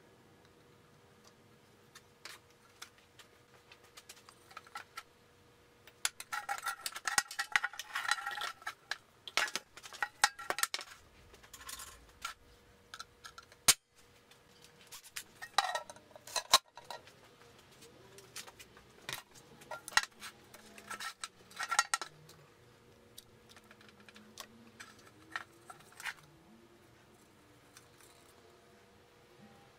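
An empty tin paint can and the parts being fitted into it are handled: metal clinks, knocks and rattles in several spells, some with brief ringing from the can, between scattered single clicks.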